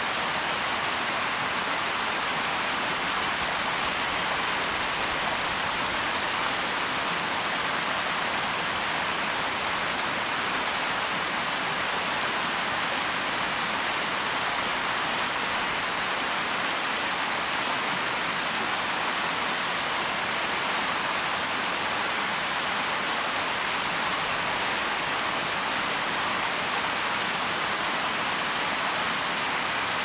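Shallow stream running over rocks and small riffles: a steady, even rushing of water with no breaks.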